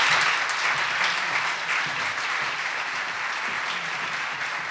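Audience applauding, loudest at the start and slowly tapering off.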